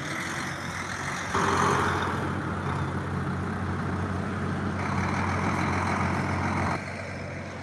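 Heavy diesel engine of a coach bus running steadily. The hum grows louder about a second in and drops back sharply near the end.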